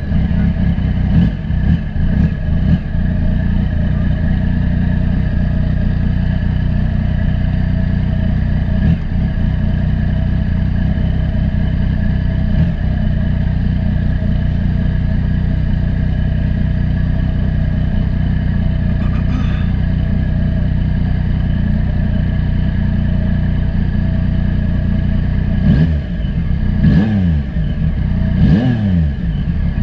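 Yamaha FZ-09's 847 cc inline-three engine running steadily under way at road speed. Near the end its pitch drops and climbs back twice.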